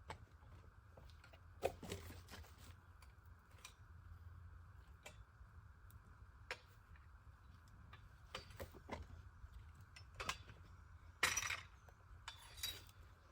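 Faint, scattered metallic clinks and knocks of hard objects being handled, the loudest about a second and a half in and a small cluster near the end.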